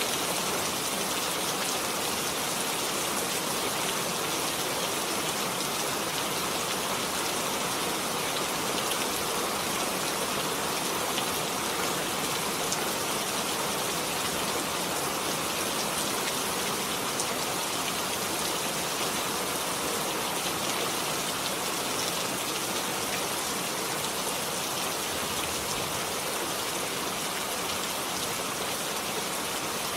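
Steady rain falling, an even hiss of drops on surfaces with occasional faint individual drop ticks.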